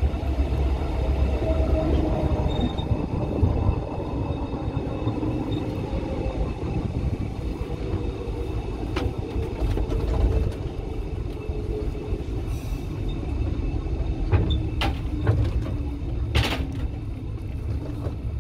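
Narrow-gauge passenger train rumbling along the track and slowing, heard from an open carriage, with a faint whine that falls slowly in pitch. In the second half come a few sharp knocks and clicks.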